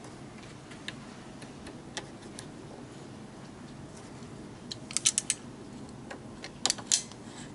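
Sharp clicks from locking pliers working the clamp of the radiator overflow tank hose as it is reconnected. A few faint ticks come first, then a quick run of four or five clicks about five seconds in and three more near the end.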